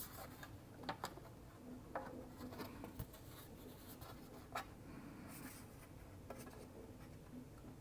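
Quiet scraping and rubbing with a few separate light clicks, from hands handling the MacBook Air's aluminium bottom cover and parts as the case is being closed up.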